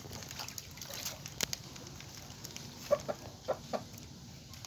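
A chicken clucking: a few short clucks close together about three seconds in, with a couple of faint clicks earlier.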